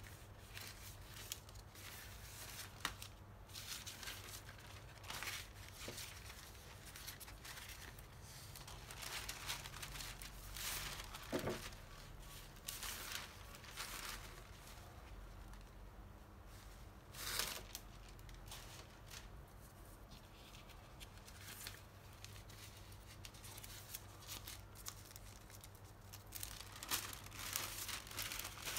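Large sheets of thin yellow printed covering paper for a balsa model kit being unfolded and handled, rustling and crinkling irregularly with a few louder crackles.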